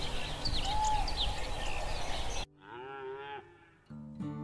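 Cow mooing twice: one moo a little past halfway and a second starting near the end, over soft guitar music. Before the first moo, high chirps sound over a noisy outdoor background.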